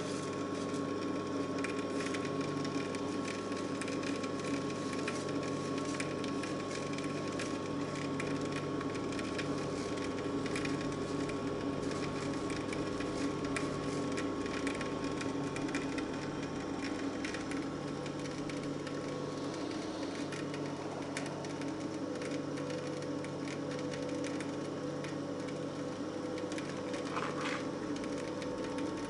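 Compact electric screw oil press running steadily while pressing hemp seeds: a continuous motor and screw hum with faint scattered crackles.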